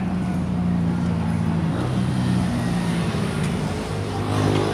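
Busy road traffic with a motor vehicle's engine running close by: a low engine drone whose pitch shifts a couple of times over the traffic noise.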